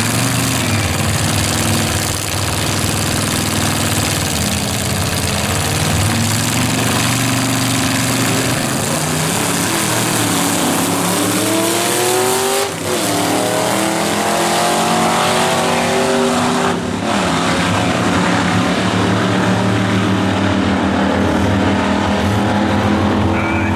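Two vintage hot-rod drag cars' engines running loudly on the start line, then launching about ten seconds in. Their pitch climbs as they accelerate down the strip, broken by a couple of short dips like gear shifts.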